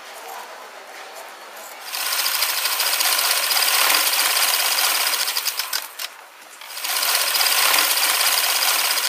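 Industrial sewing machine stitching cotton towel fabric in two long runs, starting about two seconds in, with a brief stop about six seconds in before it starts again.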